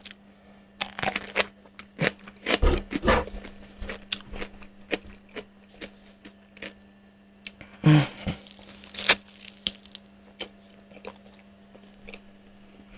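Close-miked eating sounds: crunchy bites and chewing of a fresh cucumber and then of crispy-crusted fried chicken. The crackling bites come in clusters about a second in, around three seconds and around eight to nine seconds, with smaller chewing clicks between and a faint steady hum underneath.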